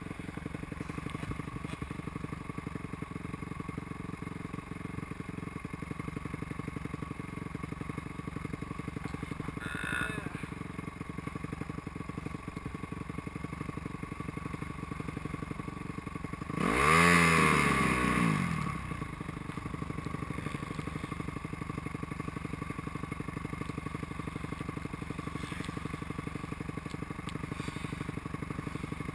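Motocross bike engine idling steadily. A little past halfway another motocross bike passes close by, loud for about two seconds, its engine note falling in pitch as it goes past.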